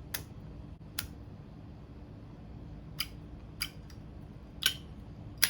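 Zippo lighter's chrome lid being flipped open and snapped shut in a lighter trick: about six sharp metallic clicks, irregularly spaced. The hinge is still a little stiff.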